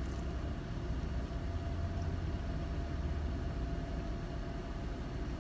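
Car engine idling, heard from inside the cabin: a steady low hum with a faint constant tone above it.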